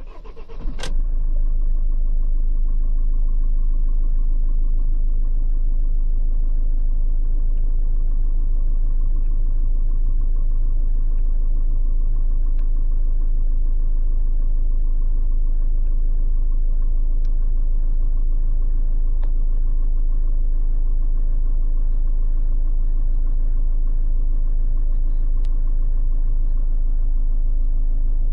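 Peugeot Boxer 2.2 HDi four-cylinder turbodiesel cold-starting at −7 °C, heard inside the cab: a brief crank that catches about a second in, then a steady idle at about 1000 rpm.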